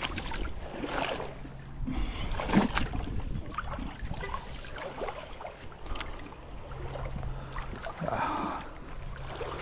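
A fishing magnet on a rope splashing into a shallow creek, then water sloshing and rippling as it is dragged back along the bottom. There are a few sharp splashes in the first three seconds.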